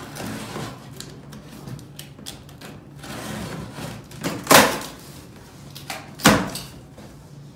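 Cardboard boxes being handled inside a large shipping carton: rustling and scraping, with two loud thumps about four and a half and six seconds in.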